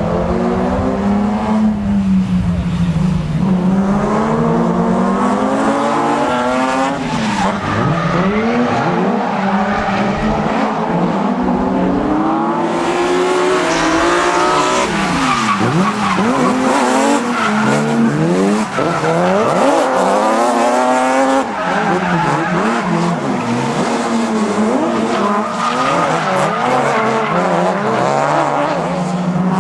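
Drift cars' engines revving up and down hard, with tyre squeal as they slide; from about halfway, several engines are heard at once.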